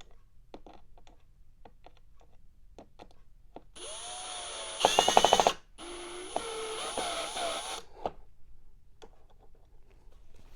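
A cordless drill or power screwdriver driving the vacuum's bottom-plate screws: its motor whines for about four seconds, its pitch rising and falling with the trigger, with a louder rapid rattle about five seconds in. Before that, a few light clicks of parts being handled.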